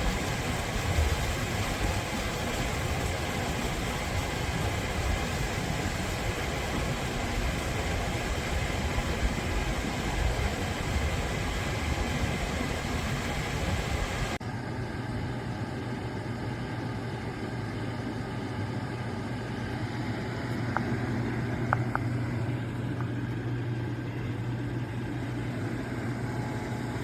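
Shinco 12,000 BTU portable air conditioner running, a steady hum with the rush of its fan, loud enough that nobody can sleep through it. About halfway through the sound changes abruptly: the hiss falls away and a steady low hum remains.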